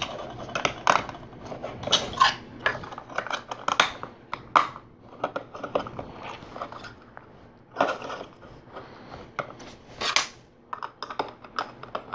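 Plastic LEGO pieces clicking and clattering as they are handled and pressed onto the model, in irregular sharp clicks with a few louder snaps.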